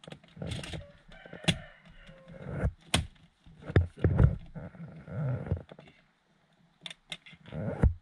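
Irregular clicks and knocks of the car's plastic dashboard trim being handled and fitted back into place, the heaviest knocks about four seconds in, with a few short pitched sounds in between.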